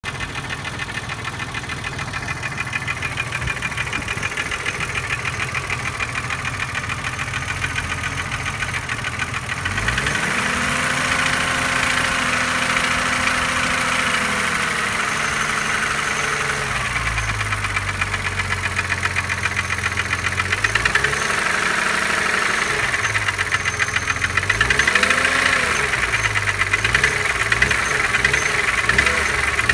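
BMW E36 M3's S50B30 3.0-litre straight-six running with a persistent fast ticking: it idles, is revved and held for several seconds about ten seconds in, then drops back to idle and is blipped a few times near the end. The tick, which the owner locates next to the oil filter, has an unknown cause; bearings, timing chain tensioner and valve clearance have been checked and found fine.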